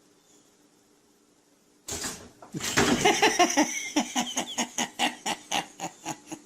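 An animal giving a rapid series of short repeated calls, starting about two seconds in, loud and quick at first, then slowing and fading.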